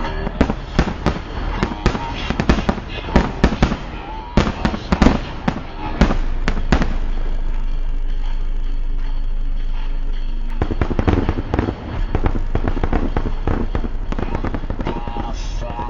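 Aerial fireworks display: rapid, overlapping shell bursts and crackling. About six seconds in it thickens into a steady, continuous din for a few seconds, then breaks back into separate bangs.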